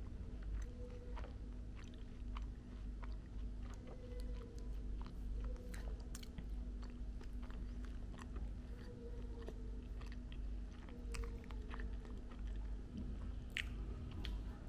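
Close-up eating sounds: chewing and crunching, with scattered small clicks and scrapes of a plastic spoon in a paper bowl of mashed potato, corn and crispy chicken. A steady low hum runs underneath.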